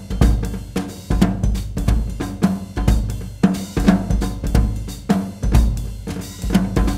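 Background music with a steady drum-kit beat of about two strikes a second, over a bass line.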